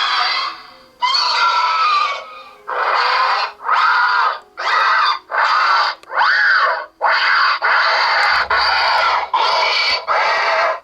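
Xenomorph shriek sound effects played through the built-in speaker of a life-size Big Chap figure's sound module: about a dozen harsh screeches, each under a second, back to back with short gaps, some gliding up or down in pitch.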